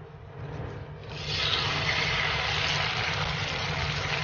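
Egg-coated eggplant for tortang talong laid into hot oil in a frying pan, sizzling loudly from about a second in.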